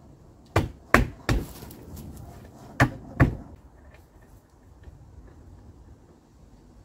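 Sharp wooden knocks as a wooden cross brace is knocked into place against a timber frame post: three in quick succession, then two more about a second and a half later.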